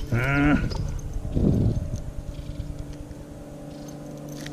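A man's wordless cry rising in pitch, then a shorter one about a second and a half in, over the steady hum of an electric trolling motor.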